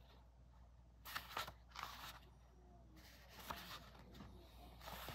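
Paper pages of a paperback book being leafed through, rustling in several short bursts.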